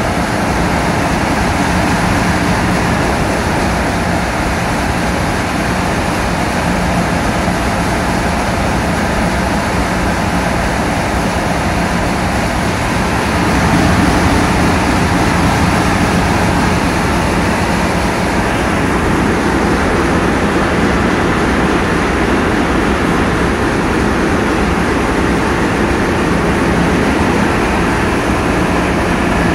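Steady running of a vessel's engine, heard from on deck, mixed with wind and water noise. It gets a little louder about halfway through.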